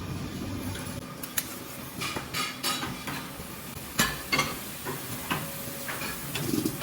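Metal molds clinking and knocking as they are handled, with a sharp knock about four seconds in. A low machine hum stops about a second in.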